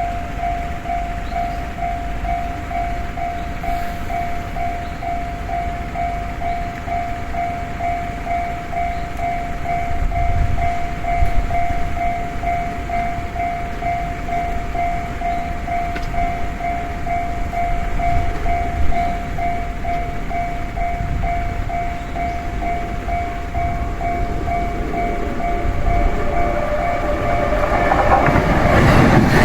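Japanese level-crossing warning bell ringing, one tone repeated at a steady even rhythm. Near the end the rumble of an approaching JR Nambu Line electric train grows loud under the bell.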